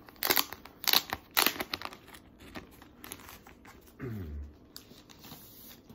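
Plastic wrapping crinkling in three sharp rustles, then softer rustles, as a vinyl LP kept in its original shrink-wrap is handled. About four seconds in there is a short low sound falling in pitch.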